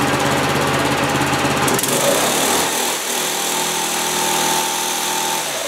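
Small single-cylinder go-kart engine running steadily, its note shifting higher about two seconds in.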